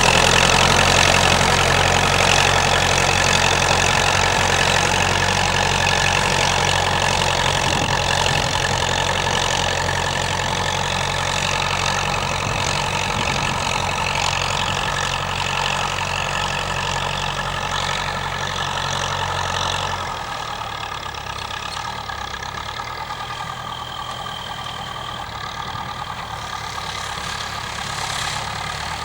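Massey-Ferguson 65 tractor engine running steadily, slowly getting quieter, its low note dropping away about twenty seconds in.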